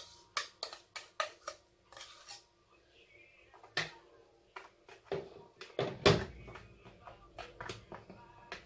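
Wire whisk clinking and scraping against a stainless steel pot and a plastic container as mascarpone cream is scraped out and spread. Irregular sharp clicks and knocks, loudest about six seconds in.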